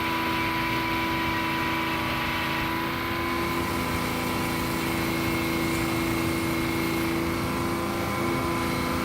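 Sawmill machinery running with a steady engine-like drone that holds an even pitch, shifting slightly about three and a half seconds in.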